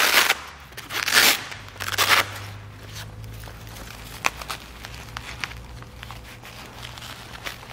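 Velcro hook-and-loop shoulder fastening on a stab vest being ripped apart in three short rasps in the first two seconds or so, then pressed back down with quieter rustling of the vest fabric and a few small clicks.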